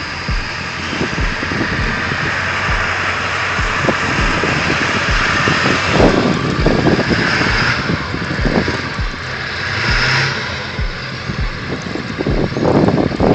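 Full-size pickup truck's engine revving while its tyres spin on snow, trying to climb a slope without traction. A steady low beat runs underneath, about one thump every half second.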